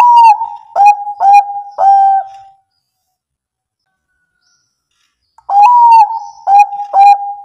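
Zebra dove (perkutut Bangkok) cooing: a phrase of four quick, clear notes at the start, the first a little higher and the last drawn out, then a pause of about three seconds and the same phrase again about five and a half seconds in.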